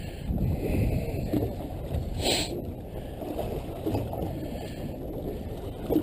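Water lapping and gurgling against the hull of a drifting fishing boat, a low uneven rumble, with a brief hiss about two seconds in.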